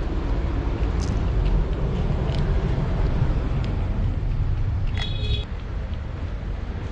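Steady low rumbling background noise, with a few faint clicks and one short high-pitched squeak about five seconds in.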